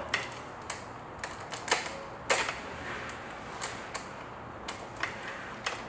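Saw chain links clicking and rattling against the guide bar as the chain is worked by hand around the nose of a concrete-cutting chainsaw bar, in irregular light clicks.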